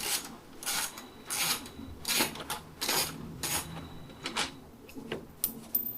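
Hand ratchet working out a motorcycle fairing bolt: a run of short ratcheting strokes, about one every three quarters of a second.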